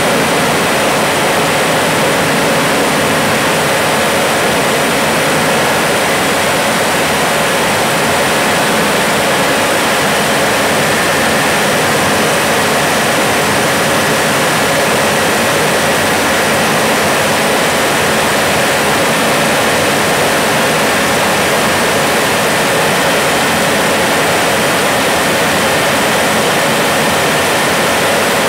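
Steady rushing noise inside a jet aircraft's cockpit: airflow over the canopy mixed with engine noise, with a faint high steady whine, unchanging through a bank and a low-level pass.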